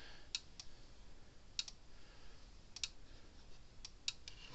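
Gallagher M400 electric fence charger clicking with each output pulse: a faint sharp click, often a quick double click, about every 1.2 seconds.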